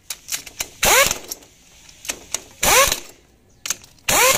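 Impact wrench tightening the ring-gear bolts on a truck differential carrier, in three short bursts that each rise in pitch as the tool spins up, with light clicks in between.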